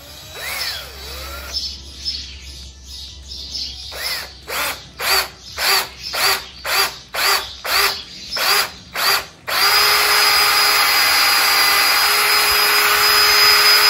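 Cordless drill boring a hole through a wooden branch. After a brief spin near the start, it is pulsed in short bursts about two a second from about four seconds in, then held running steadily for the last few seconds as the bit cuts through.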